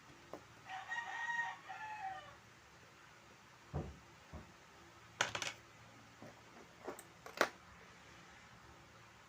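A rooster crowing once, about a second and a half long, followed by a handful of short, sharp clicks and taps, the loudest near the end.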